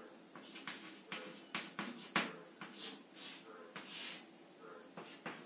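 Chalk tapping and scraping on a blackboard as letters and bond lines are written: a run of sharp taps, the loudest about two seconds in, with longer scratchy strokes around three to four seconds in.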